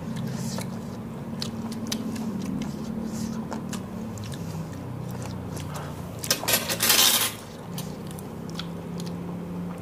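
Eating sounds at a table: a metal spoon clicking against a plate and chewing, with a loud breathy hiss about seven seconds in as a diner reacts to chili heat from spicy green-mango rujak.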